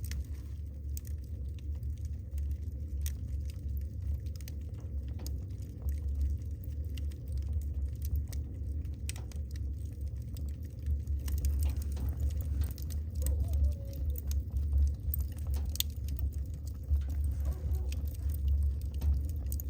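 Wood fire burning in a fireplace, with many sharp crackles and pops over a low steady rumble of the flames. The crackling grows louder and thicker about halfway through.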